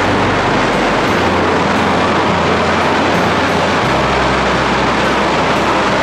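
Loud, steady industrial noise of an electric arc furnace in a steel melt shop, an even roar with no breaks, over low held bass notes of background music that change about a second in and again near four seconds in.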